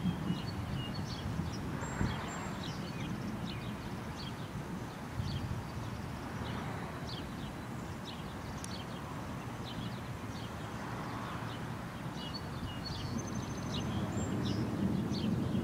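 Wind buffeting the microphone in low, swelling gusts ahead of a storm front, with many small birds chirping throughout.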